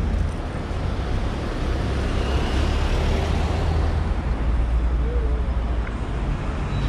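Street traffic: motor vehicles running past with a steady low rumble, one passing more loudly about two to four seconds in.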